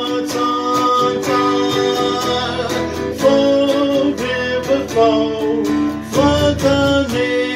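Gretsch hollow-body electric guitar strummed in regular chord strokes, with held notes sounding under the strums.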